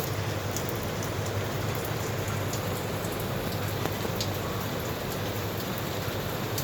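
Steady rain falling, with scattered sharper drops ticking on hard surfaces.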